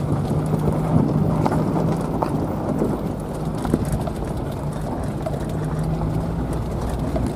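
Suzuki Sidekick 4x4 driving over rough gravel, heard from inside the cabin: a steady low engine hum over tyre rumble, with scattered ticks and knocks from stones and the bouncing body.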